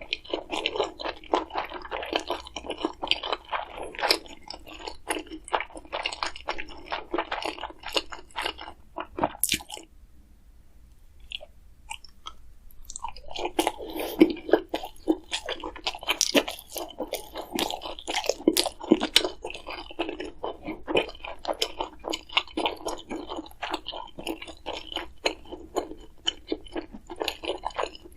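A person chewing and crunching crisp food, with many quick, irregular crunches; the crunching stops for about three seconds near the middle and then starts again.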